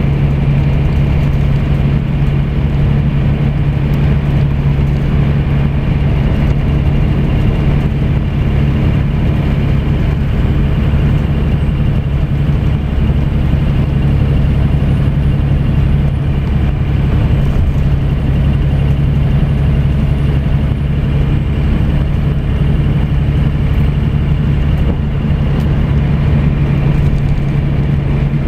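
Scania coach's engine and tyres heard from inside the cabin near the rear, a steady low drone with road rumble as the coach cruises along the highway.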